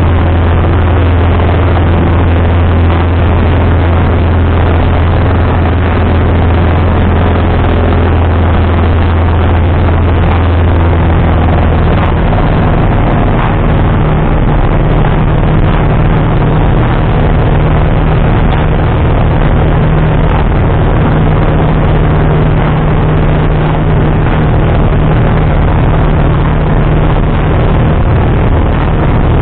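Single-engine light aircraft's piston engine and propeller droning steadily, heard inside the cockpit. About ten seconds in, the pitch of the drone shifts and then holds steady again.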